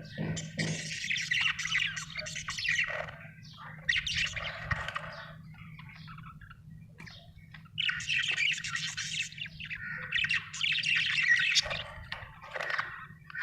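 Budgerigar chattering and chirping in bursts of quick warbled calls with squawky notes, quieter for a couple of seconds in the middle and busier again from about eight seconds in. A faint steady low hum runs beneath.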